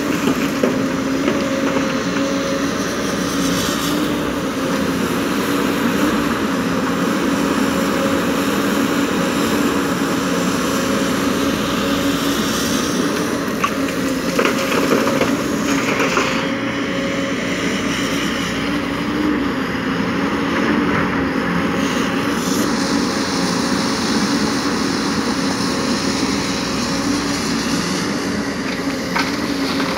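Diesel engine of a JCB tracked excavator running steadily as it loads rock into a dump truck, with a few clatters of rock dropping into the truck's steel bed near the middle.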